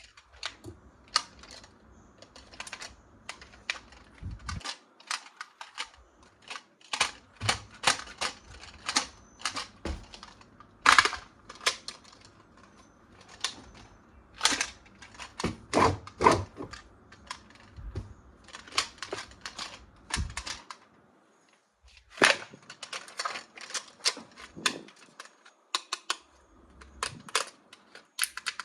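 Plastic toys and packaging being handled and unboxed: irregular sharp clicks and taps, with a few louder snaps.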